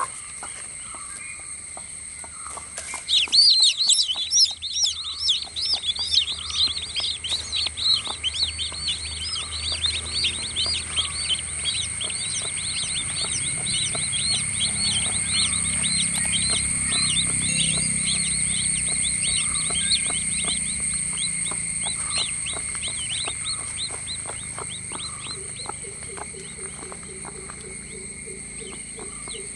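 Newly hatched chicks peeping: rapid, repeated short falling peeps that start about three seconds in and thin out toward the end, over a steady high-pitched background tone.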